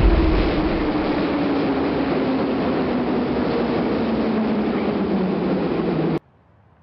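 Minsk Metro train running past along the platform: a steady rush of rail and wheel noise with a whine that falls slowly in pitch. A heavy low rumble fades out at the start, and the sound cuts off suddenly near the end.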